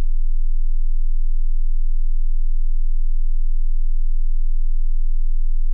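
A single deep bass tone held steady at the close of an electronic dance mix, with a slight, even pulsing in loudness.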